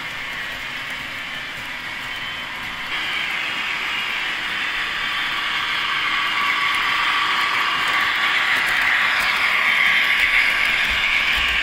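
Model freight train running on its track: a steady rolling rattle of the small wagons' wheels on the rails. It steps up about three seconds in and keeps growing louder as the train nears.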